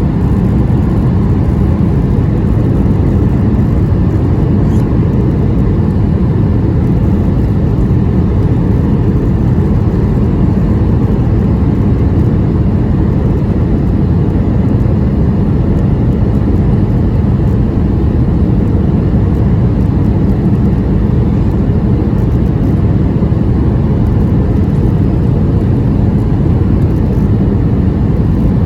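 Steady low rumble of a Boeing 737-800's engines and airflow, heard from inside the passenger cabin in flight. The level stays even throughout, with no thumps or changes.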